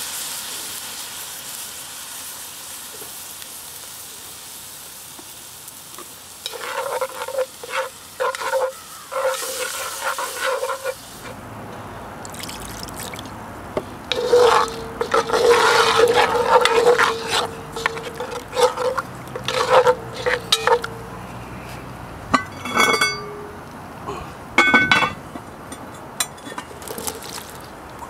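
Sizzling in a hot cast iron Dutch oven, fading away, then a spoon stirring a flour-and-broth paste around the pot in repeated squeaky scraping strokes. Two sharp knocks near the end.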